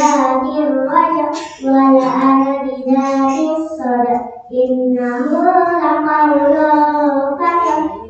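A child singing solo, a slow melody of long held notes, broken by two short pauses for breath.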